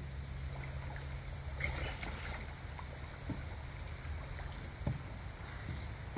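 Kayak paddle strokes in slow river water as a folding kayak is paddled backwards: soft dips and faint splashes with water moving along the hull, over a steady low hum.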